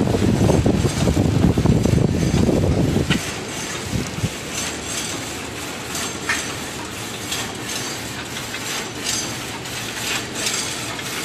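Biscuit feeding system and flow-wrapping machine running: a steady mechanical clatter with frequent sharp clicks and clinks. A heavy low rumble is loudest for about the first three seconds, then drops away.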